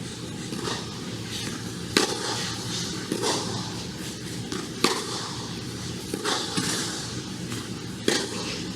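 Tennis rally: tennis balls struck by rackets, sharp pops about every three seconds, with softer knocks of the ball bouncing between the strikes, over steady outdoor background noise.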